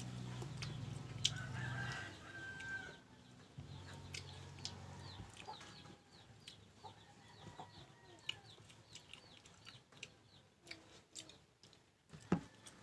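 Chickens clucking faintly and repeatedly in the background, with a low hum in the first few seconds. There are also a few soft clicks of green mango being chewed.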